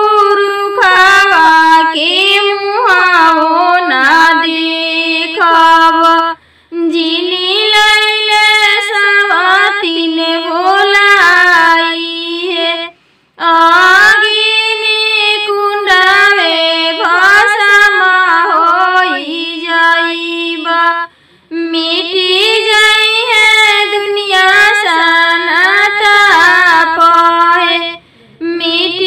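A solo female voice singing a Bhojpuri devotional song to Shiva, unaccompanied, in long phrases broken by four brief pauses.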